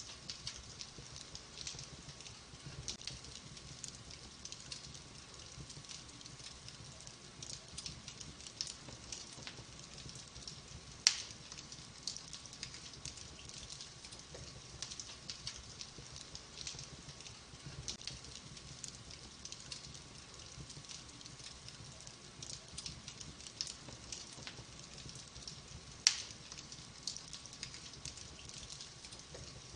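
Wood fire in a fireplace crackling steadily with many small, quick pops and snaps. Two much louder, sharp pops stand out, one about a third of the way in and one near the end.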